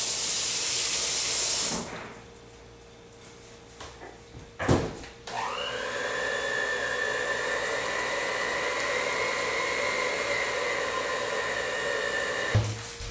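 A short burst of running tap water, then a knock, then an electric hand mixer starts with a rising whine and runs steadily, beating chocolate cake-mix batter, until it stops shortly before the end.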